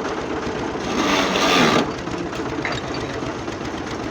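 Tractor diesel engine running with a fast, even clatter. About a second in, a louder rushing noise rises over it for about a second.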